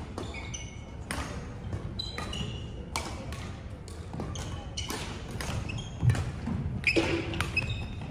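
Badminton rackets striking shuttlecocks, with sharp repeated knocks, and shoes squeaking briefly on the wooden court floor, in a large echoing sports hall with other courts in play. A few heavier thuds of footsteps land about six and seven seconds in.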